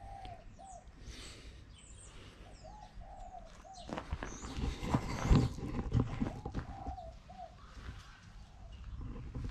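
Birds calling: one bird repeats a short, arched call note in runs, and fainter high chirps sound over it. From about four seconds in, a couple of seconds of crunching footsteps on gravel and camera handling noise are the loudest thing.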